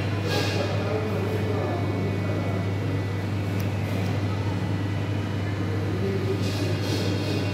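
Steady low hum of a restaurant dining room's background noise, with faint indistinct sounds over it and a brief hiss about a third of a second in.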